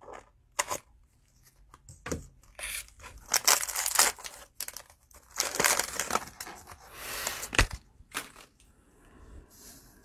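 Cellophane wrapper of a trading-card cello pack being torn open and crinkled, in several irregular bursts of tearing and rustling, with a few sharp clicks between them.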